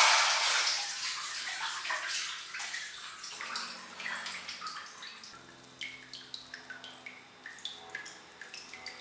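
Water in a clawfoot bathtub: a splashing rush that is loudest at the start and fades over the first few seconds, then a string of drips plinking into the bathwater.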